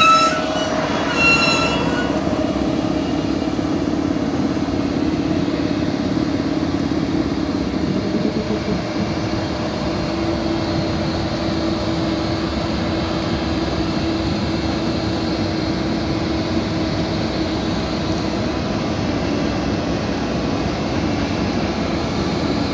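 ČD Cargo class 163 electric locomotive running close by: a steady mechanical noise with a low hum that grows stronger about nine seconds in and eases off near the end. A brief high squeal dies away in the first two seconds.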